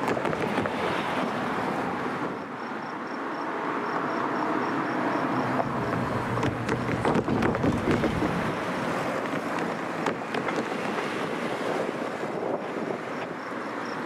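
Road traffic passing, with a car driving by close about seven to eight seconds in, loudest at that point, and wind on the microphone. A faint, rapid high-pitched chirping comes and goes in the background.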